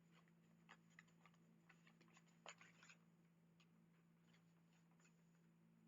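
Near silence: room tone with a faint steady hum and a few faint, scattered clicks that die away about halfway through.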